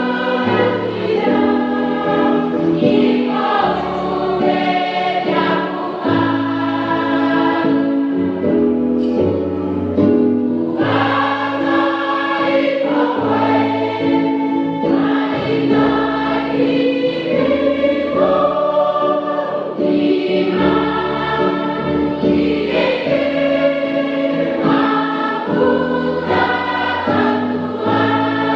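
A choir singing a hymn in several parts, holding chords over a strong, steady bass line.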